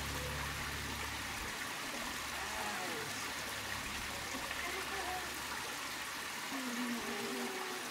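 Shallow rocky creek running and trickling steadily, its water stirred by someone wading and reaching into it.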